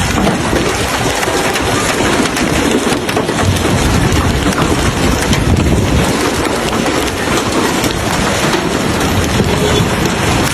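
Heavy storm rain pelting hard surfaces: a dense, steady patter of many small impacts.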